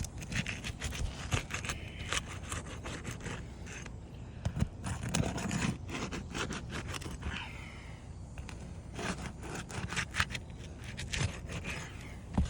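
Roof snake worked under asphalt shingles, scraping and crackling as it breaks the shingles' adhesive seal, with many irregular sharp clicks.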